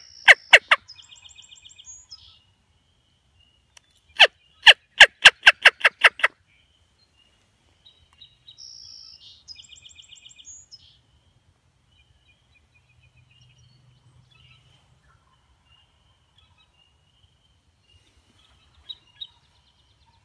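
Turkey yelps made by a hunter on a mouth call: a short run of a few yelps right at the start, then a longer run of about eight loud yelps between four and six seconds in. A songbird sings faintly in the pauses.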